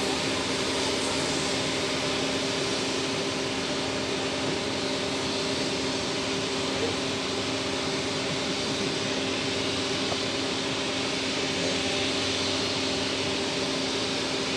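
Trailing 47 class diesel-electric locomotive 4716 running at a constant engine speed, a steady multi-pitched hum over an even hiss from the moving train.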